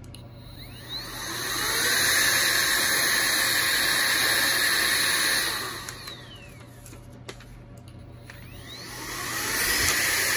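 Cordless electric air duster's high-speed (33,000 RPM) blower motor spinning up with a rising whine and blowing steadily for about four seconds, then winding down. About eight seconds in it spins up again and keeps running.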